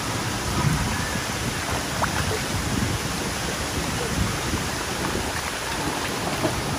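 Steady rush of pond water around a crowd of koi at the surface, with low, uneven wind rumble on the microphone.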